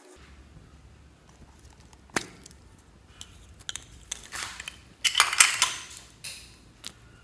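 Clear blue store-bought slime being peeled off plastic and squeezed in the fingers, giving a sharp click about two seconds in, then bouts of crackling and popping as air is pressed out, loudest a little past the middle.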